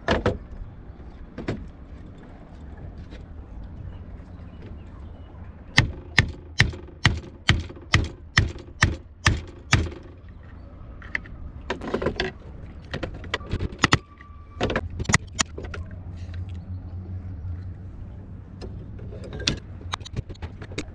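A screwdriver used as a pin punch is struck with a hammer to drive the pivot pin out of a Spinlock rope clutch. The sharp taps come in an even run of about a dozen, a little over two a second, then a few more scattered taps.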